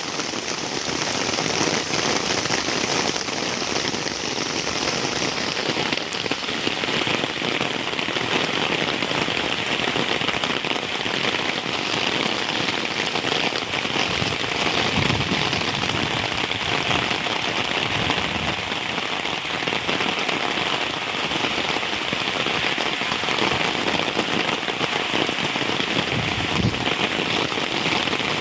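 Heavy rain falling steadily, a dense even patter of drops striking surfaces, with a couple of brief low rumbles about halfway through and near the end.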